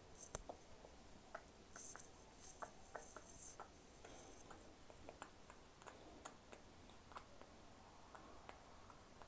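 Near silence with faint scattered clicks and brief hissy rustles, a cluster of rustles about two to four seconds in.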